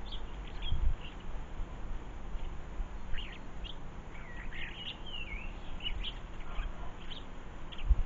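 Small garden songbirds calling, short chirps and twittering gliding notes, busiest in the middle, over a low rumble with a couple of dull low bumps.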